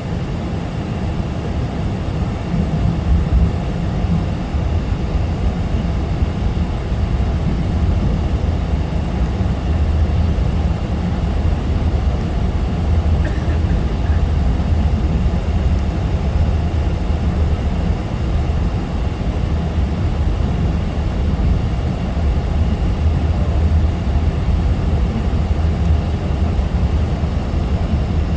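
Steady low rumble and rushing air noise inside a Boeing 777 airliner's cabin.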